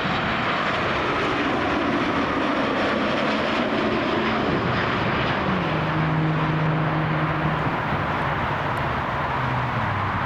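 Jet airliner's engines running loudly as it passes, a steady rushing noise with low hums that drop in pitch over the second half.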